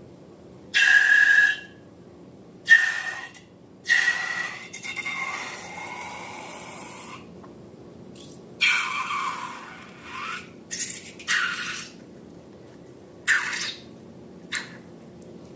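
Air let out of a balloon in short spurts: the first few squeal at a steady high pitch, the later ones hiss without a clear pitch.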